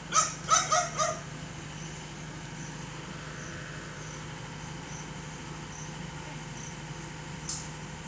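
A dog barks four times in quick succession about a second in, over the steady low drone of a backhoe's engine running.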